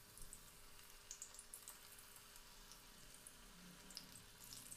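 Batter-coated cauliflower pieces deep-frying in hot coconut oil: a faint, even sizzle with scattered small crackles.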